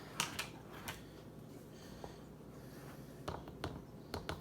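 A few faint, scattered clicks and taps of a measuring spoon scooping cocoa powder.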